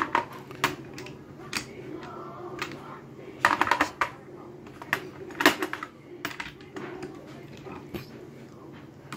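Irregular metal clicks and clinks of socket-set tools being handled, as an extension bar is pushed into a socket and handle. There is a quick cluster of clicks about three and a half seconds in and a sharper knock about five and a half seconds in.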